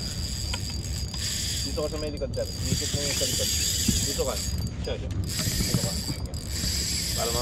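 Spinning fishing reel ratcheting and clicking while a hooked fish is played. Underneath runs a steady hiss of wind and sea.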